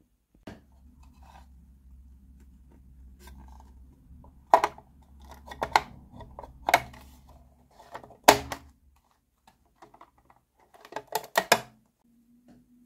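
Hard plastic clicks and knocks as the hinged roof of a toy plastic dollhouse is handled and closed over the rooms: single sharp clicks a second or so apart, then a quick cluster of clicks near the end as it settles into place.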